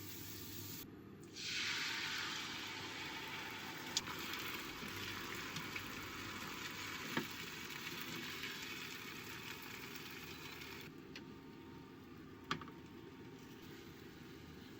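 Food going into a hot frying pan and sizzling. The sizzle starts suddenly about a second in, then eases off and fades out near the end. Three sharp taps come during it.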